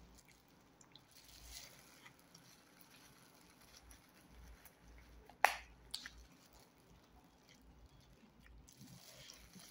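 Quiet eating sounds: soft chewing and the crinkle of a thin plastic food-handling glove as rice is gathered by hand from a plastic container. There is a sharp click about halfway through.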